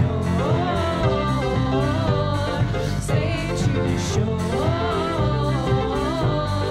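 Live worship band playing: women's voices singing a melody over a drum kit and guitar, with cymbal strikes about twice a second.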